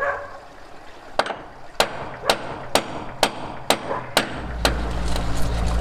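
Hammer striking a metal plate held over a new cutlass bearing, driving the bearing into the boat's shaft tube: about eight sharp metallic blows, roughly two a second, starting about a second in. A low steady rumble comes in near the end.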